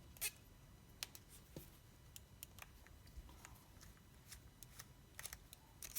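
Faint, scattered small metallic clicks of a 2mm Allen key working the body bolts out of a KillerBee rotary tattoo machine.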